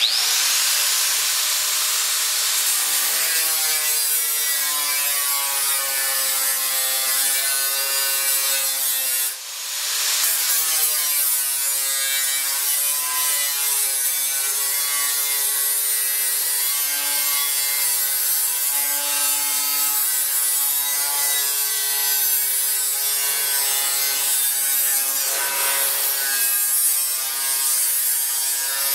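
Corded angle grinder with a thin cut-off wheel switched on and cutting through sheet steel, a steady high whine whose pitch wavers as the wheel loads up in the cut. About nine seconds in it drops off briefly and winds back up.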